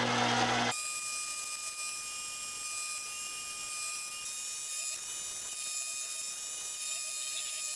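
Mini metal lathe turning down a brass rod with a carbide cutting tool: a steady high whine with a hiss of cutting. A low hum drops away suddenly under a second in, and the sound cuts off abruptly at the end.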